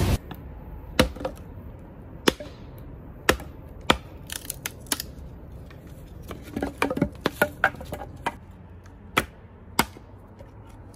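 Hatchet chopping and splitting firewood into kindling: a dozen or so sharp chops at uneven intervals.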